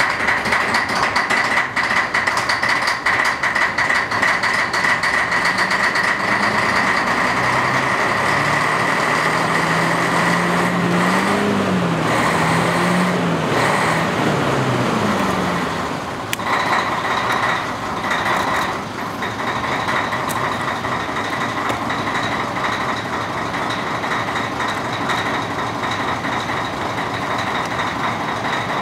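Hino DS90 diesel engine of a KiHa 10-type railcar running just after starting, its speed wavering up and down for the first half, then settling to a steady idle from about halfway.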